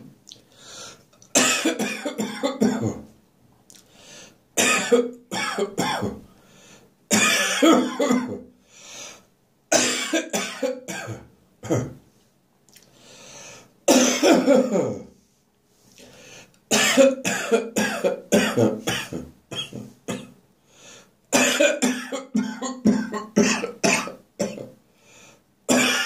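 A man's harsh, chesty morning cough coming in about seven fits, each a run of several coughs in quick succession, with short pauses between them. It is a lingering cough that will not clear up.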